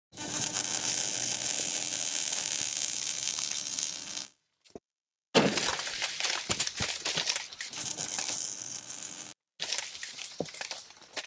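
Sound effects for an animated logo intro. A loud, steady rush of noise lasts about four seconds and stops. After a short pause comes a sudden crash, followed by a run of crackling, breaking and clattering debris sounds, which break off briefly and then return more sparsely near the end.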